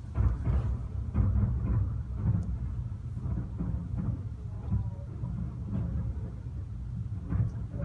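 Fireworks display: aerial shells bursting one after another in a steady run of low booms and thuds that blend into a rolling rumble, with a few sharper cracks.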